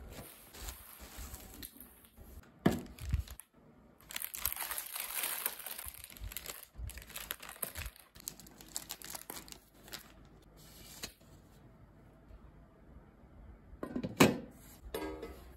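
Bubble wrap and plastic packaging crinkling and rustling as new cookware is unwrapped and handled, densest about a third of the way in. A few short knocks from handling, the loudest near the end.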